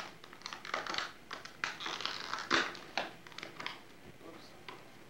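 Paper and packaging crinkling and rustling in irregular bursts as a present is unwrapped, loudest about halfway through.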